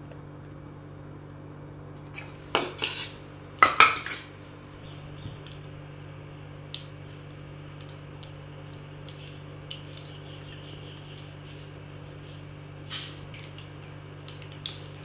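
Metal kitchenware clattering against the kadai in two short bursts a few seconds in and once more near the end. Between them come a few small scattered pops from mustard seeds spluttering in hot oil, over a steady low hum.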